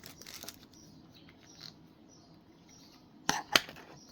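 Two sharp clicks of hard plastic about a third of a second apart, a little over three seconds in, as the plastic action figure is handled. Faint high chirps sound quietly in the background.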